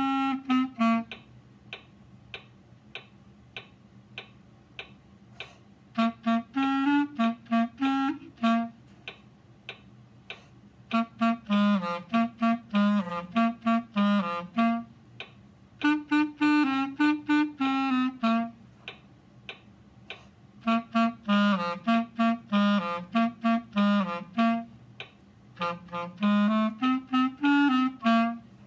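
Solo clarinet playing a boogie part in short, separated notes, mostly in its low register. The notes come in phrases of two or three seconds with rests between them, the first rest about five seconds long near the start.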